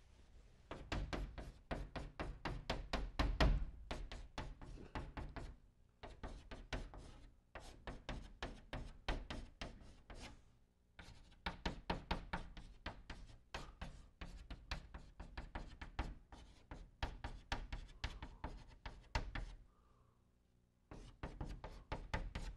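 Chalk on a blackboard writing Chinese characters stroke by stroke: quick runs of taps and short scrapes, pausing briefly three times between groups of strokes.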